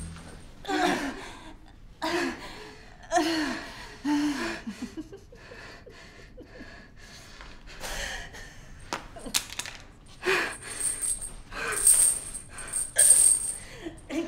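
A girl's wordless gasps and strained, breathy cries in short bursts about a second apart, easing off in the middle and returning near the end. A few sharp clicks come in the quieter stretch about nine seconds in.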